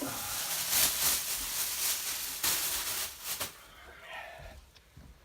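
Packaging being handled: a dense rustling and scraping of cardboard and paper wrapping with a few sharp crackles, dying away after about three and a half seconds.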